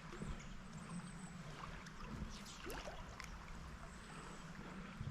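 Creek water running: a steady rush with scattered small gurgles and ticks.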